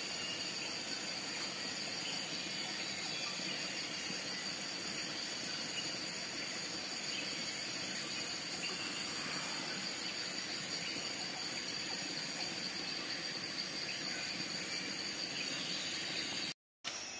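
Steady insect chorus of a tropical forest at dusk: an unbroken high-pitched whine in two even tones over a softer hiss. It cuts out briefly near the end.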